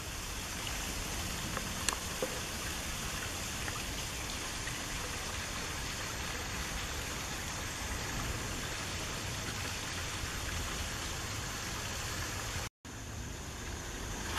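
Steady hiss of a small creek's flowing water, breaking off for an instant near the end.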